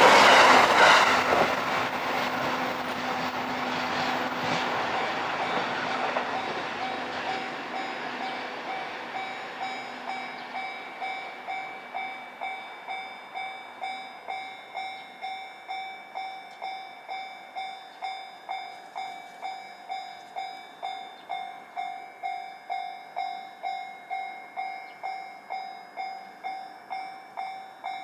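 A JR Sobu Main Line train passes over a Japanese level crossing, loud at first and dying away over the first several seconds. The crossing's warning bell keeps ringing with a steady, even ding that is left alone once the train has gone.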